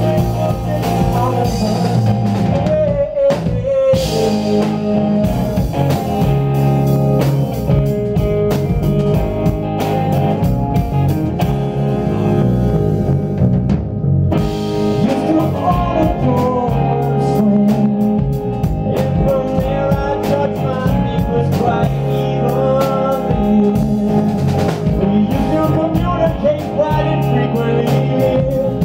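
Live rock band playing: electric guitar, bass guitar and drum kit in a steady groove.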